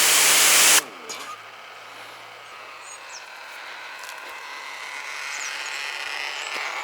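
Ryobi cordless pressure washer spraying with a loud, even hiss that cuts off sharply less than a second in, leaving a faint hiss that slowly grows louder.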